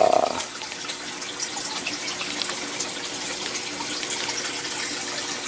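Water running steadily in an aquaponic system, a constant trickle and splash with a faint steady hum under it.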